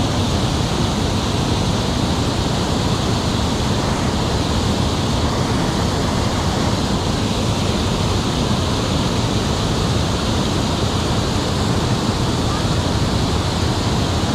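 Water pouring over a low dam spillway and churning in the pool below: a loud, steady rushing that does not change.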